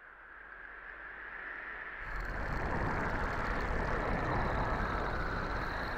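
Opening ambience of an animated short film's soundtrack: a steady airy noise that fades in and grows louder, stepping up about two seconds in, with a faint high whine added from then on.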